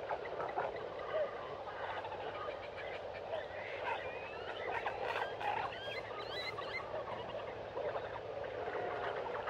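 A busy chorus of short chirps, peeps and quick squeaky calls from small animals or birds, many overlapping, over a steady background hiss.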